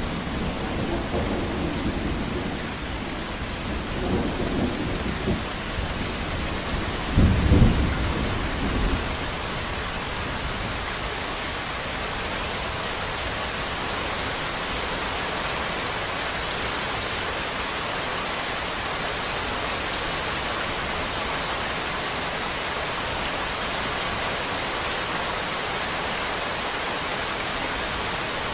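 Steady heavy rainfall, an even hiss. In the first nine seconds, low rumbles roll under it three times, the loudest about seven seconds in.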